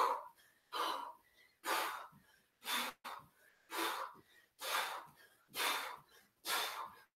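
A woman breathing hard in a steady rhythm, one forceful breath about every second, panting from the exertion of power jacks.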